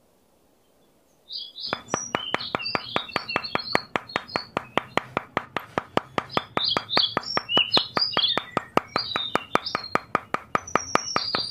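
Small birds chirping over a fast, even clicking of about five clicks a second, starting after about a second of silence.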